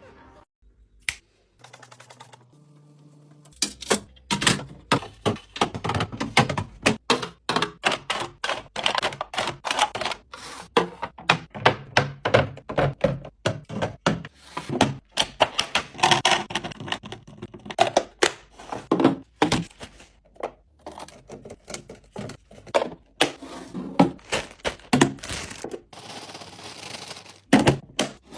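Packaged food and containers being set down and arranged while restocking a fridge or snack station: a rapid, uneven run of clacks and thunks. It starts after a few quieter seconds with a couple of isolated clicks.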